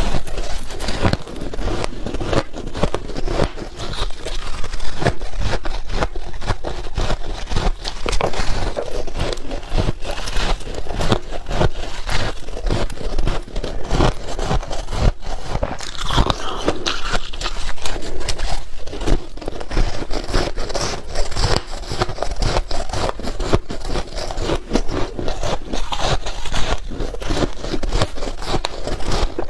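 Close-up biting and crunching of powdery white freezer-frost ice: a dense, irregular run of crisp crunches that goes on without pause.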